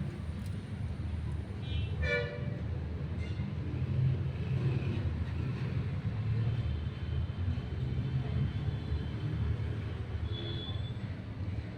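A steady low rumble that swells in the middle, with a short tone about two seconds in and faint high tones later.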